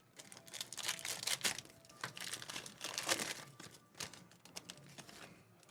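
Foil trading-card pack wrappers being torn open and crinkled: irregular crinkling and tearing noises for about five seconds, dying down just before the end.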